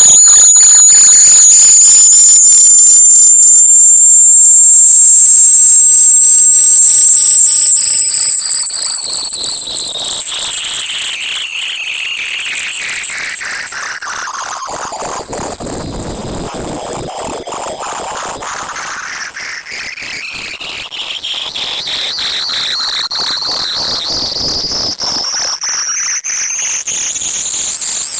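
Loud electronic high-pitched tone slowly rising in pitch, played as an earbud-finder noise. A fainter second tone sweeps down to a low pitch around the middle and back up again.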